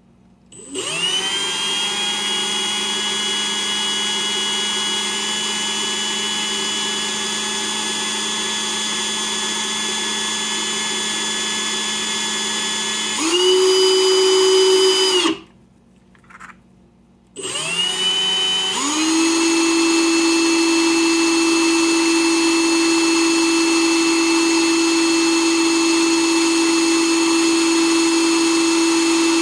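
A small electric motor spins up about a second in and runs at a steady pitch, then runs faster and higher for about two seconds, stops briefly, and spins up again to run steadily at the higher pitch.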